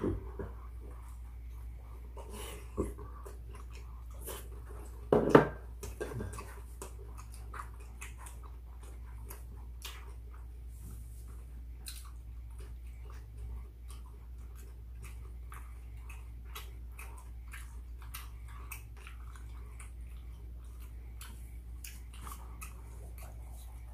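Close-miked eating sounds: chewing of seasoned fried chicken and rice, with many small clicks and ticks from mouths and chopsticks over a steady low hum. A single loud, short vocal sound stands out about five seconds in.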